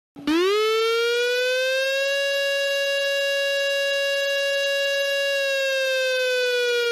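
Civil defense siren wailing: it starts suddenly, rises quickly to a steady high pitch, holds it, and begins to slowly fall in pitch about two thirds of the way through.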